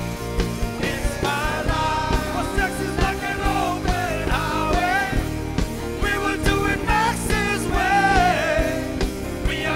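Live band playing a rock-style song with singing over a steady drum beat.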